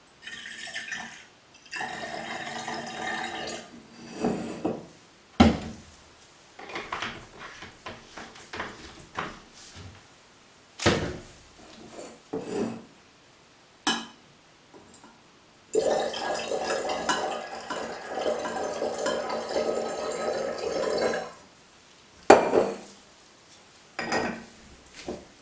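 Liquid poured into a glass Erlenmeyer flask to make dilute hydrochloric acid: a short pour about two seconds in, then a longer pour of about five seconds past the middle. Sharp clinks and knocks of glassware come between the pours and near the end.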